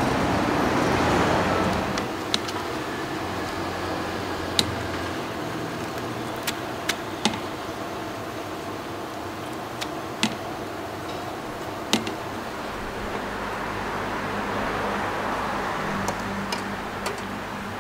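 Steady rushing hum of a noodle-stall kitchen, louder for the first two seconds, with about a dozen sharp clinks of metal utensils against pots and bowls as a noodle bowl is dished up.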